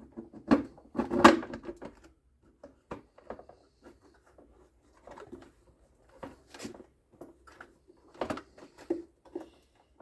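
Irregular clicks, knocks and rattles of the hard plastic casing halves of a Kärcher pressure washer being handled and worked apart, the loudest cluster about a second in.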